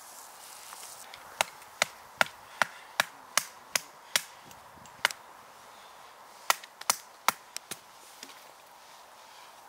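Batoning: a wooden baton striking the spine of a custom bushcraft knife to split a short log, giving a run of sharp wooden knocks about two and a half a second, a pause with a single knock, then a few quicker knocks near the end.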